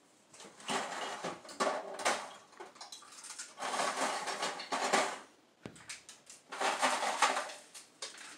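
Dishes and cutlery clattering, in three bouts of a second or two each.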